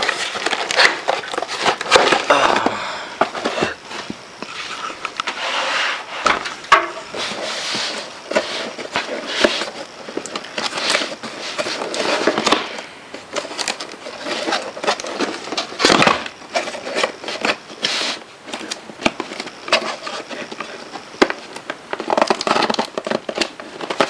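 Hands handling a small cardboard box: scraping, rubbing and rustling, with many short sharp taps and clicks as the cardboard is gripped, turned and pried at.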